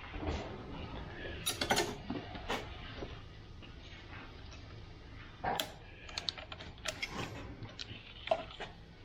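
Irregular clicks, taps and light knocks of hand tools and plastic parts as a skid steer's cab blower motor assembly is taken apart by hand, in loose clusters with pauses between.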